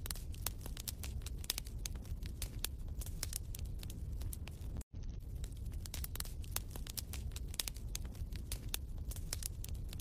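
Wood fire crackling in a fireplace: a dense, irregular run of sharp pops and snaps over a low steady rumble, dropping out for an instant about halfway.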